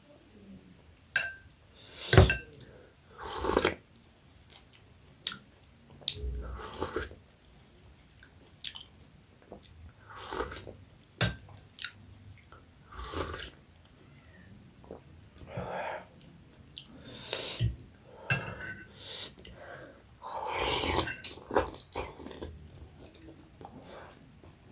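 Close-miked eating: a person chewing and biting into jhol momo dumplings, in irregular mouthfuls every second or two with a few sharp mouth clicks.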